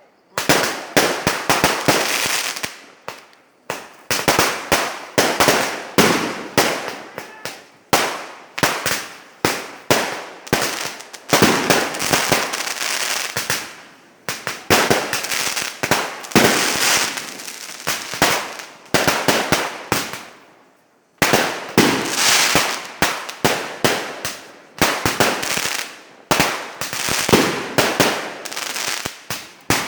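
Fireworks going off in rapid volleys of many sharp bangs, in runs of a few seconds broken by brief lulls.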